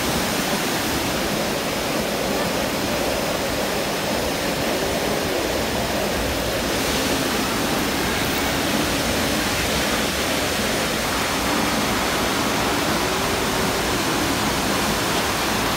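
Waterfall's steady rush of falling water, an even roar that doesn't let up.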